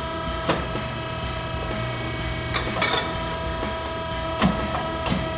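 Exhaust pipe bender running with a steady mechanical hum, and a few sharp clicks and clanks: one about half a second in, one near three seconds and two near the end.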